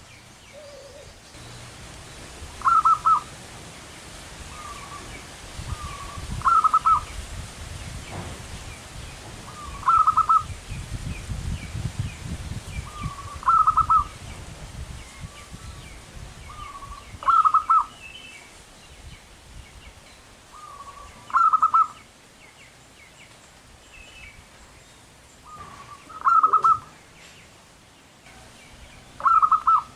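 Zebra dove (perkutut) cooing: a short, loud trilled phrase repeated about every three to four seconds, eight times, each led by a couple of softer notes.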